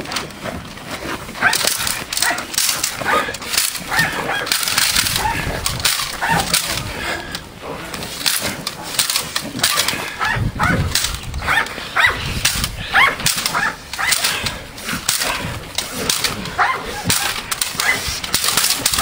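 Belgian Malinois on a bite at a decoy's bite suit, with repeated irregular sharp slaps and rattles from the decoy's split-cane stick and the scuffling of the struggle, mixed with short dog vocalisations.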